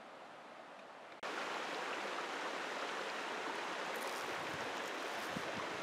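Steady rush of a stream's running water, which starts suddenly about a second in over a fainter hiss. A few faint thumps come near the end.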